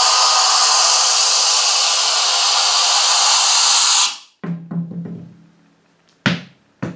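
Air gun on an industrial air compressor blowing a continuous jet through a plastic funnel holding a tennis ball: a loud, steady hiss that cuts off suddenly about four seconds in. A few sharp knocks follow near the end.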